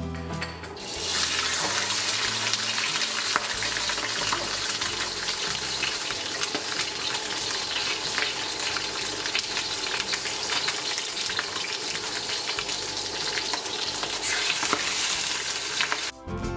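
Snapper pieces frying in hot oil in a wok: a steady, loud sizzle with crackles and spits. It starts about a second in and cuts off just before the end.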